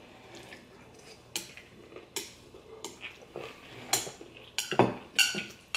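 Chopsticks clicking and tapping against a ceramic bowl: a handful of scattered light clinks.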